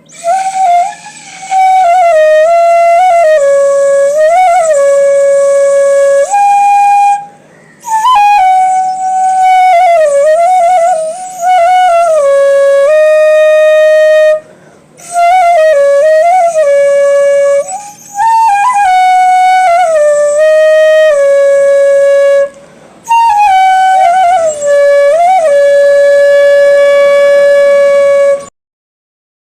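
Solo flute melody with notes that slide and bend into one another, played in several phrases with short breaks between them; it stops near the end.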